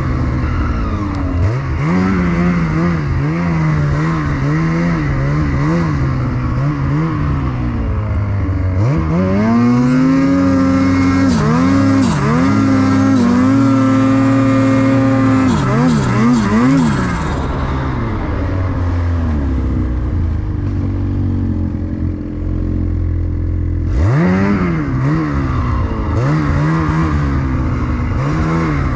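Snowmobile engine under constantly changing throttle, the revs rising and falling every second or so. About a third of the way in it climbs to a high pitch and holds there for several seconds. It then drops to a lower, steady drone before the revs start rising and falling again near the end.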